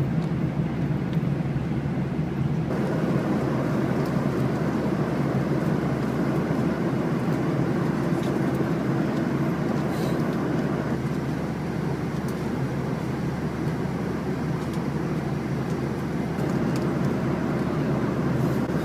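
Airliner cabin noise: a steady low rumble of engines and rushing air, with a wider hiss coming in about three seconds in.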